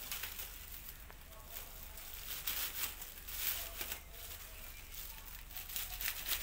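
Black plastic bag and packing tape crinkling and tearing in several short bursts as the wrapping is cut and pulled open with scissors.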